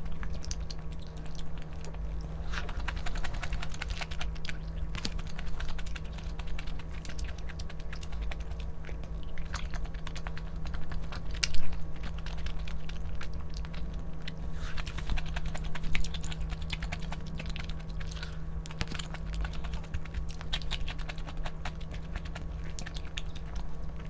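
Close-up eating sounds: chewing with many small, irregular clicks and crackles, one louder click about halfway through, over a steady low hum.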